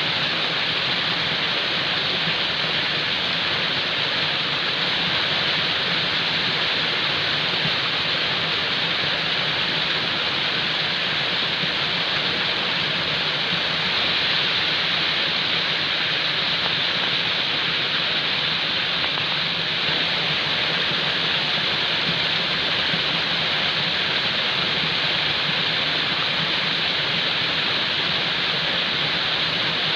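Falling water: a steady, unbroken rush of water, as from a waterfall.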